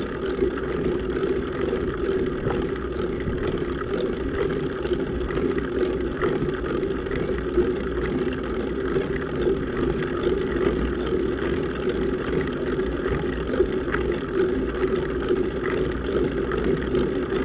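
Steady rumble and hiss of a road bike climbing slowly on tarmac, with tyre, drivetrain and wind noise picked up by the bike-mounted action camera's microphone. There are faint ticks scattered throughout.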